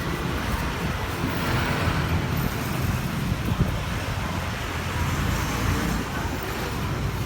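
Steady street traffic noise, a rumble of passing vehicles, with some wind on the microphone.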